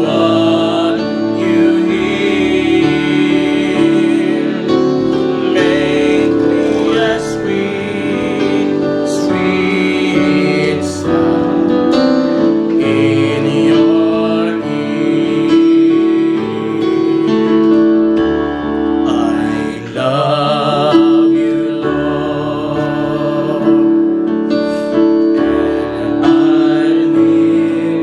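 Slow gospel worship song played on piano and keyboard, with singing.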